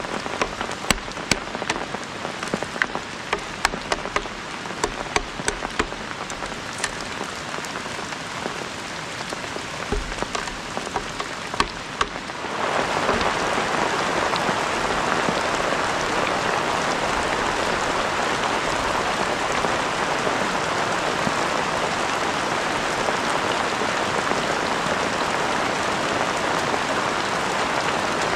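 Rain falling, at first with many separate drops tapping sharply on a surface. About halfway through it changes abruptly to a louder, dense, steady downpour.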